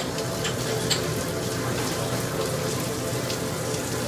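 Food sizzling and spitting in pans over lit gas burners: a steady hiss with a few sharp pops in the first second.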